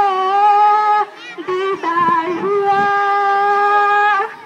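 A girl singing solo into a handheld microphone, unaccompanied, in Hindi. She holds one steady note for about a second, sings a short phrase, then holds a long note that ends near the close.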